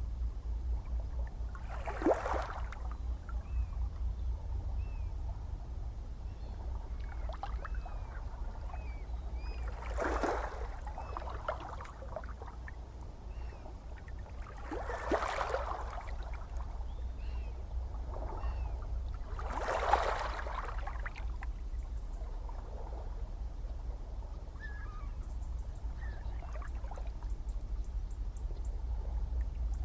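Gentle ocean waves lapping over a steady low rumble, with four soft washes of water swelling and fading.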